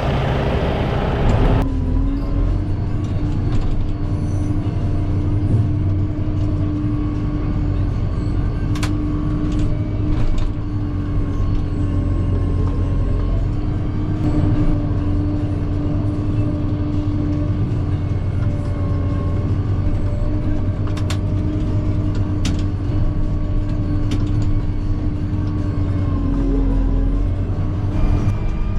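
Farm machinery engine running steadily at constant speed, a low rumble with a held whine, broken by a few short knocks, as the feed mixer is loaded.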